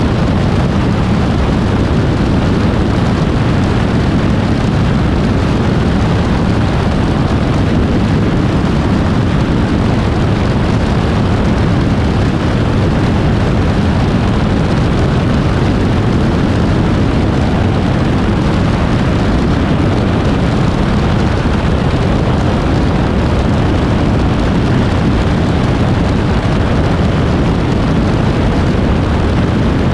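Steady, loud rush of wind and engine noise, heard from a camera mounted under the wing of an Aeroprakt A22 light aircraft in flight. It is a deep, even rumble with no changes.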